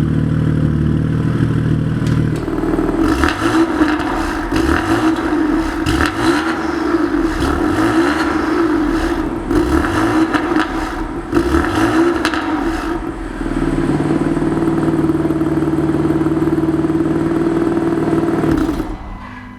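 BMW S55 twin-turbo straight-six running through an aftermarket exhaust: it idles, is revved repeatedly for about ten seconds with crackles on the overrun, settles back to a steady idle, and cuts off near the end.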